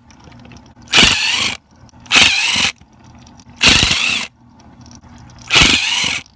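Cordless drill-driver run in five short bursts of about half a second each, taking the screws out of an irrigation valve's cover.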